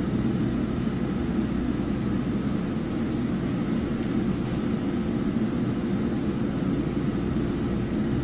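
Steady low rumble inside the passenger coach of a Metrolink commuter train rolling along the line.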